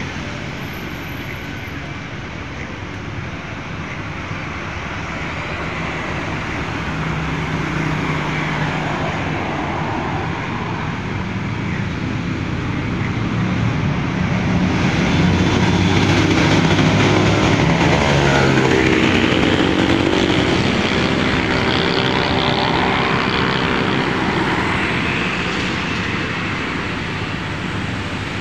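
Steady road traffic, with motorcycles and cars going by. In the middle a heavy vehicle passes close and its engine becomes the loudest sound, its note dipping and rising again as it goes by.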